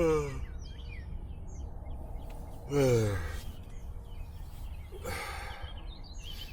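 A man sighs twice, long and falling in pitch, at the start and about three seconds in, then breathes out in a short rush about five seconds in. Birds chirp in the background over a steady low rumble.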